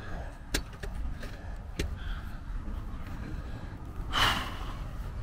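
Wind rumbling on the microphone, with a couple of light clicks and a brief sharp hiss about four seconds in.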